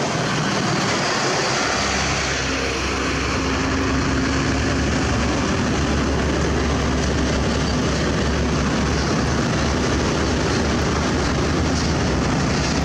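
Heavy truck's diesel engine running loud and close, with a deep steady rumble that sets in about a second and a half in.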